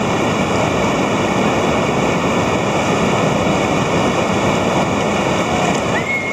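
Whitewater rapids rushing, a loud steady wash of churning river water.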